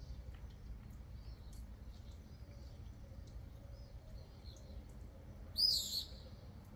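Small birds chirping faintly in short high notes, with one much louder chirp about five and a half seconds in.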